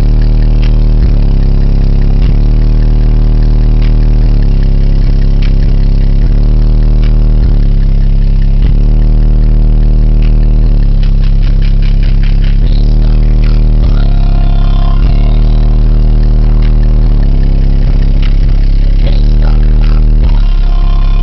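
Two Fi Audio BL 18-inch car subwoofers, driven by a JBL Crown GTI A6000 amplifier, playing bass-heavy music very loud: a deep bass line whose notes change every second or two, with clicks and rattles over it.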